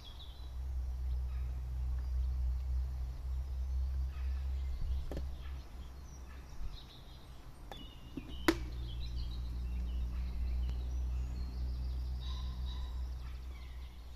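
Outdoor lakeside ambience: a steady low rumble that fades out for a couple of seconds in the middle, small birds chirping now and then, and a few sharp clicks, the loudest a little past halfway.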